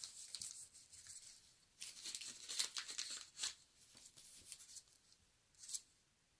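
Paper wrapping rustling and crinkling in irregular bursts as a bar of steel is handled in it, busiest in the middle and ending with one short rustle.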